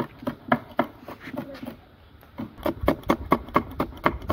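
Kitchen knife chopping green chillies on a wooden cutting board: quick, even knocks of the blade against the board, about four a second, with a short pause in the middle.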